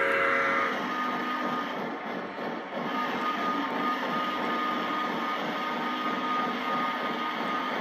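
An O gauge model steam locomotive's electronic sound system finishes a whistle blast under a second in. Model steam trains then keep running on three-rail track, with steady rolling noise and a faint, thin steady whine.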